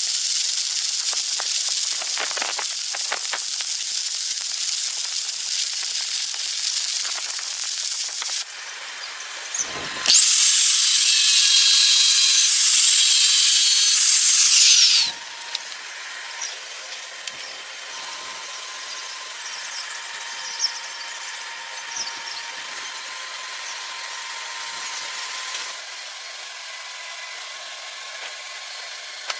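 Electric arc welding on steel plates: a steady high sizzling hiss from the arc. It stops briefly about eight seconds in, comes back louder with a high whine for about five seconds, then goes on more quietly.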